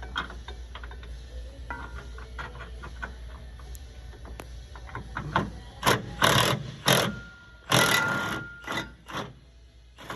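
Hand ratchet clicking in quick small strokes as a rear shock nut is worked loose, followed in the second half by several loud, short harsh bursts of metal tool noise.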